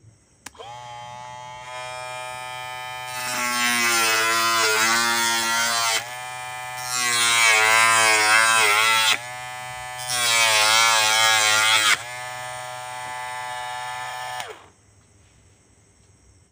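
Homemade 12-volt DC-motor mini drill with a small cutting disc is switched on with a click and runs with a steady whine. It cuts into thin card strips three times, each cut adding a loud rasping grind and pulling the whine's pitch down. It then runs free briefly and is switched off, spinning down with a falling whine.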